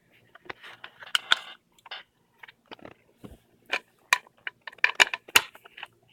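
Irregular metal clicks and knocks of a steering-wheel quick-release hub being worked by hand, its parts being pushed together and its locking collar turned. The loudest knocks come in clusters about a second in, around four seconds in, and around five seconds in.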